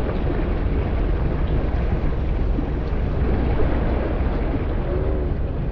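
Small outboard-powered boat under way: the motor running steadily, under a strong rumble of wind buffeting the microphone.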